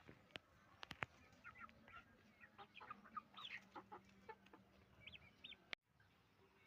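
Chickens clucking in short, quick calls, with a few sharp clicks in the first second.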